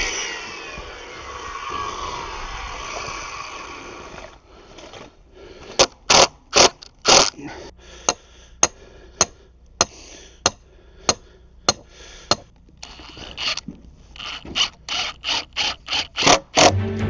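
A whirring sound that falls in pitch and fades away over the first few seconds, then a run of short, sharp scraping strokes, about two a second, coming faster near the end.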